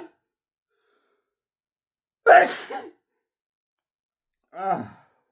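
A man sneezing hard once, about two seconds in; the sneeze is deliberately induced by tickling inside the nose with a bobby pin. A short sigh follows near the end.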